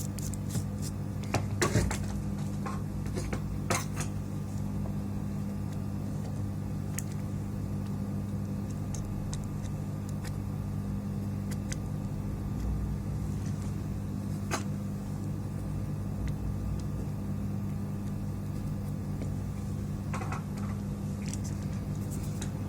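Steady low electrical hum on a workbench, with a few short sharp clicks or taps, the loudest about two and four seconds in.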